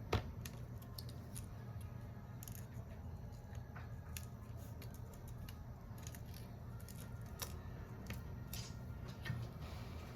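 Scattered light clicks and taps of small repair tools on a smartphone being worked on, with one sharper tap at the start, over a low steady hum.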